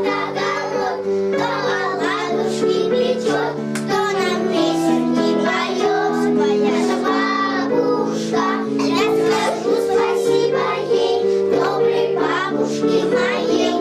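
Children singing a song about grandma with instrumental accompaniment, sustained notes under the sung melody.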